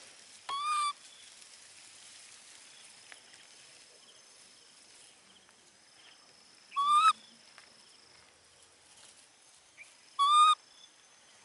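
Baby monkey giving short, clear high-pitched calls, each about half a second long: three of them, several seconds apart.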